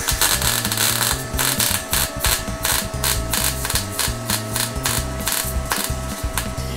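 Arc welding on a steel exhaust pipe, a dense crackle, mixed with background music with a steady beat.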